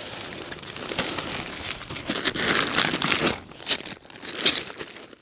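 Tent fabric and its nylon stuff sack rustling and crinkling as they are handled and unpacked, with two sharper, louder rustles near the end.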